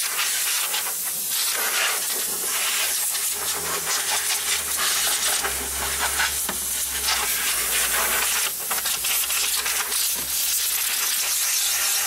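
Compressed air hissing steadily from an airline, blowing dust out of a commercial bottle cooler's compressor and condenser compartment; the hiss rises and dips slightly in strength.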